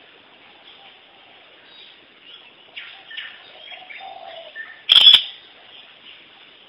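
Scattered short bird chirps, faint, then a sudden loud noise lasting about a quarter of a second, about five seconds in.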